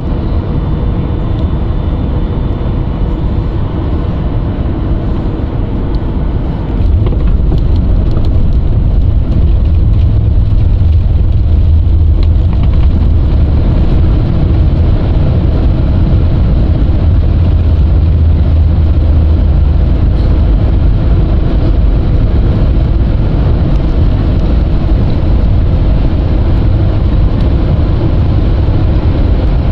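Jet airliner cabin noise while the plane rolls on the ground: a steady engine and rolling rumble that steps up louder about seven seconds in and stays loud.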